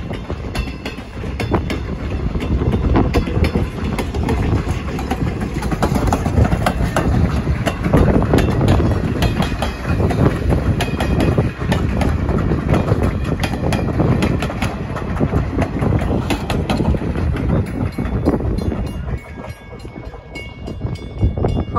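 Passenger coaches of a steam train rolling past at close range: a loud steady rumble with rapid wheel clicks over the rail joints, easing off near the end as the last car goes by.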